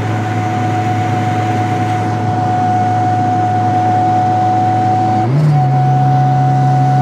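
Volvo 740 16-valve turbo engine heard from inside the cabin, running at steady revs with a thin steady whistle above it. About five seconds in, the revs jump up briefly and then hold at a higher steady pitch.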